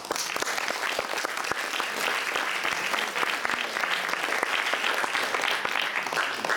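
Audience applauding: dense, steady clapping that starts all at once and keeps going without a break.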